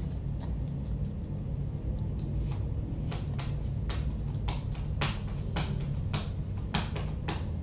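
Light, irregular clicks and taps of close handling, over a steady low hum.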